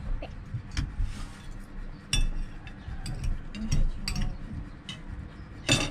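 Metal spoons and forks clinking against dishes, a scattering of short clinks with the loudest near the end.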